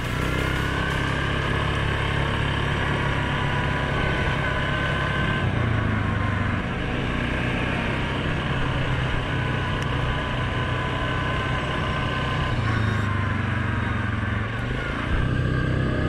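Suzuki KingQuad 750's single-cylinder four-stroke engine running at trail-riding speed, its note dropping and picking up again a few times, with tyre and wind noise.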